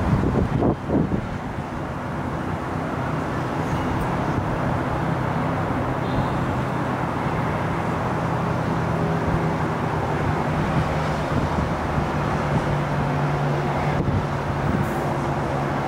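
Steady low rumble of distant road traffic with a droning hum, broken by a few brief low thumps in the first second.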